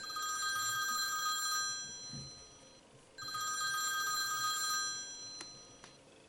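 Telephone ringing twice with a trilling electronic ring, each ring about two seconds long with a pause of about a second between them: an incoming call.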